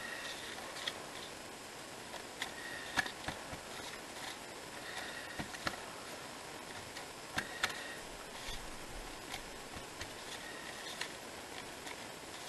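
A small rubber stamp being inked on an ink pad and pressed onto paper cards: light, irregular taps and clicks over a faint hiss.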